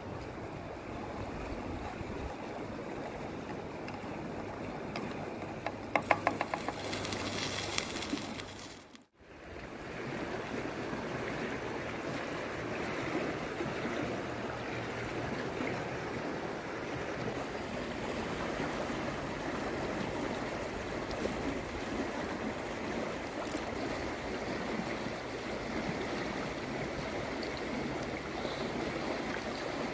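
A fast, rocky river rushing steadily over stones. A short patch of clicking comes about six seconds in, and the sound briefly drops out about nine seconds in before the rushing resumes.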